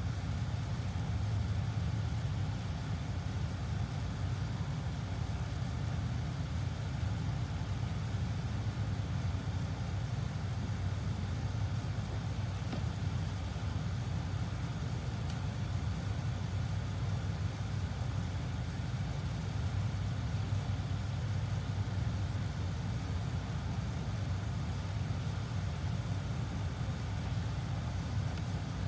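Steady low machine hum that holds at an even level throughout.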